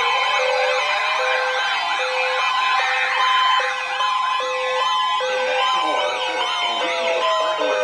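Several weather alert radios sounding their alarms at once: fast warbling siren sweeps over a steady high alert tone, with a lower tone beeping on and off a little faster than once a second.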